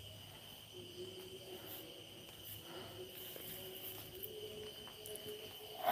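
Crickets trilling faintly and steadily, one continuous high-pitched chirr.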